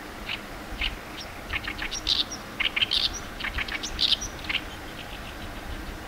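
Oriental reed warbler singing: a quick run of short, loud notes, densest in the middle and stopping about four and a half seconds in.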